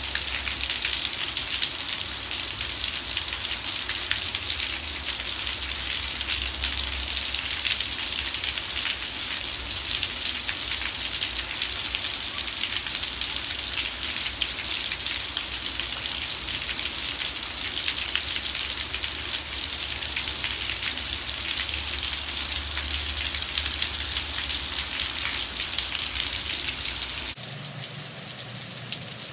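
Heavy rain pouring onto standing water and wet pavement: a dense, steady hiss of countless drops splashing. The sound shifts abruptly about two seconds before the end.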